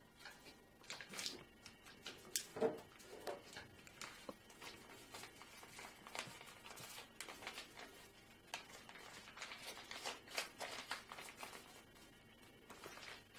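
Origami paper being handled and creased by hand: scattered crisp rustles and crackles as the folded paper is opened out and flattened again, the loudest about two and a half seconds in.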